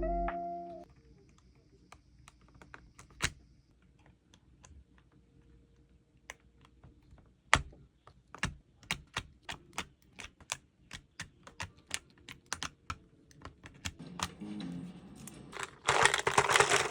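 Typing on a mechanical keyboard: a few scattered key clicks, then from about halfway a steady run of keystrokes at roughly three to four a second. Near the end a louder, noisier burst comes in over the clicks.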